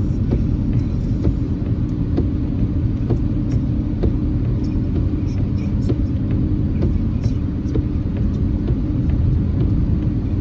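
Steady low rumble of a car driving, heard from inside the cabin, with light irregular ticks of rain striking the car.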